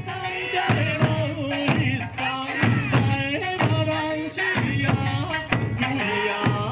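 Music with a steady drum beat, bass and a wavering melody line.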